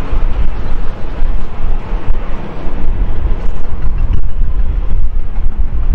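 Airbus A321 jet engines at takeoff thrust during the takeoff roll: a loud, steady roar, with gusty wind buffeting on the microphone.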